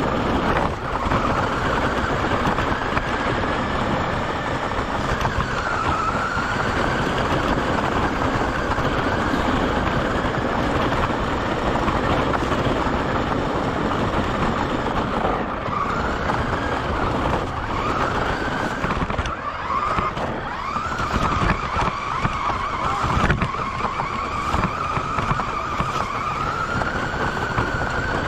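Radio-controlled car's motor and drivetrain whining as it drives, the pitch rising and dipping with the throttle, over steady rough tyre noise on gravel.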